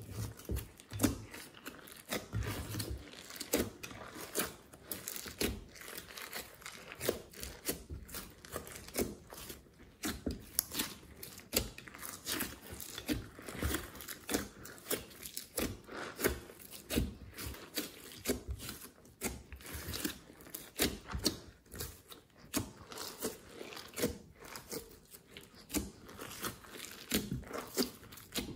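Glossy slime being kneaded, stretched and folded by hand in a glass dish, giving a steady run of quick, irregular sticky clicks and crackles.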